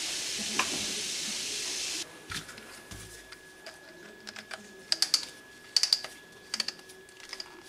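Hard plastic clicking and tapping as a toy spinning top's red plastic launcher is handled and fitted onto the top, in irregular small clicks that come thicker near the end. A steady hiss runs for the first two seconds, then cuts off.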